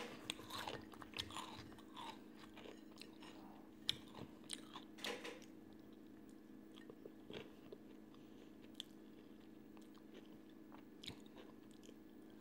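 Close-up eating sounds of a person chewing breaded fried food: soft bites, chewing and mouth clicks, thick in the first five seconds and sparser after.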